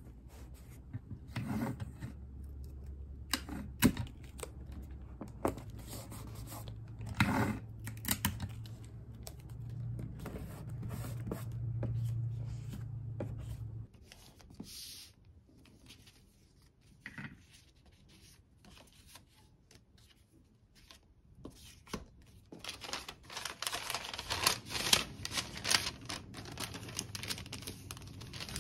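Hands packing sticker orders into kraft-paper envelopes: paper sliding, rubbing and rustling, with sharp taps and tearing sounds. The scratching gets denser near the end. A low hum sits under the first half and stops about halfway.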